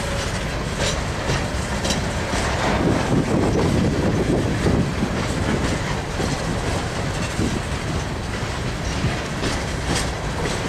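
Freight train hopper cars rolling past: a steady rumble of steel wheels on rail, with sharp clicks as wheels cross rail joints.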